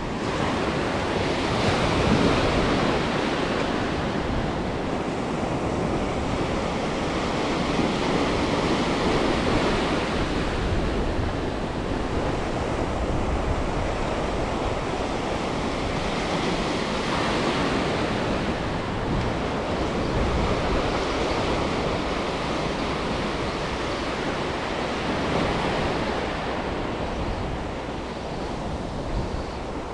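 Ocean surf washing onto the shore, swelling and easing every several seconds, with wind rumbling on the microphone.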